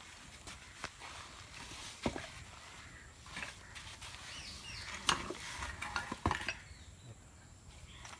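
Scattered light metallic clinks and taps of metal tools and parts being handled by hand, with sharper knocks about two, five and six seconds in; no engine is running.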